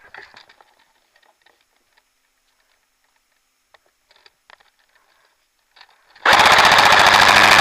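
Airsoft electric rifle firing a full-auto burst of rapid, evenly spaced shots, loud and close, lasting about a second and a half. It starts about six seconds in, after near quiet with a few faint ticks.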